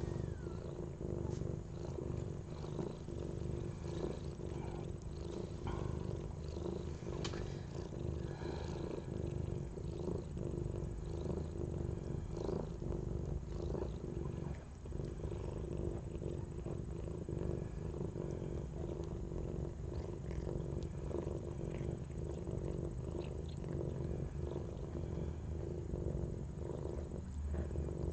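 Mother cat purring steadily while licking her newborn kitten clean just after giving birth, with soft repeated licking sounds over the purr.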